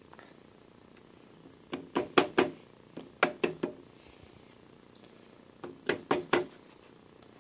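A mallet tapping the end of a Logan lathe spindle to drive it out of the headstock bearings. The taps come in three quick runs of about four knocks each.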